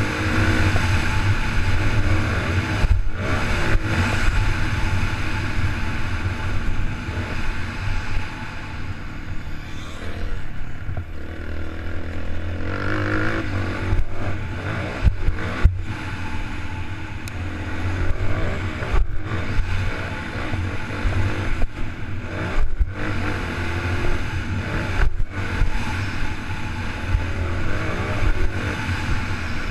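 Dirt bike engine riding a motocross track, revving up and falling away, with its sound dropping out briefly several times, with a heavy low wind rumble on the microphone.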